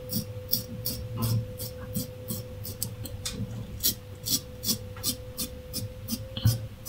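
Yuma double-edge safety razor with a Shark blade scraping through lathered moustache stubble on the upper lip in short quick strokes, about three a second.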